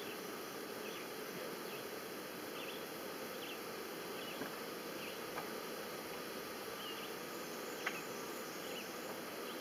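Honey bees buzzing around an open hive: a steady hum, with faint short high chirps repeating and a few light clicks.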